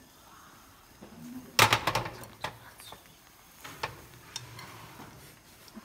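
Frying pan set down with a clatter of knocks onto the metal pan supports of a portable butane stove, followed by a few light taps of chopsticks against the pan as an omelette is rolled.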